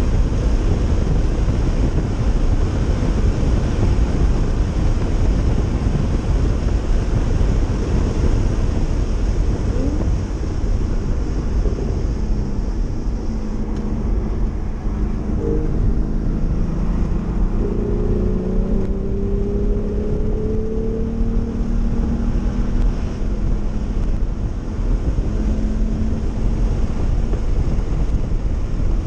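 A Porsche sports car at track speed heard from inside the cabin: a heavy, steady rush of wind and road noise with the engine under it. The engine's pitch rises and falls as the car accelerates and slows for corners, standing out more in the second half.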